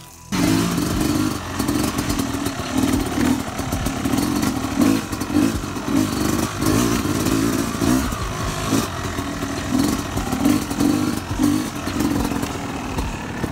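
Yamaha dirt bike engine running as the bike is ridden around a rut, the throttle opening and closing in repeated surges. The sound cuts in suddenly just after the start.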